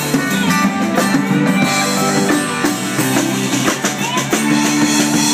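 Live band music: an acoustic guitar played over a drum kit.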